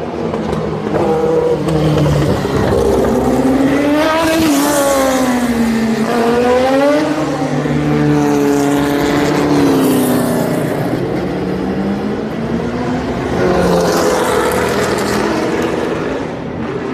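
A car engine being driven hard, its pitch climbing and falling several times as the revs rise and drop, with some hiss over the top at the peaks.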